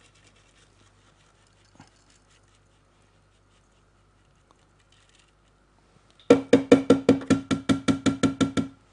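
A quick run of sharp, evenly spaced knocks with a ringing pitch, about six a second, starting a little after six seconds in and lasting about two and a half seconds. Before it there are only faint handling clicks.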